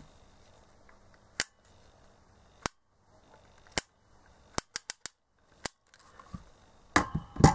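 Rotary range selector switch of a Hartmann & Braun Multavi 7 multimeter being turned from position to position, giving sharp detent clicks. At first the clicks come singly about a second apart, then a quick run of four, and a louder cluster near the end. The switch works smoothly with no scratching on its gold-plated contacts.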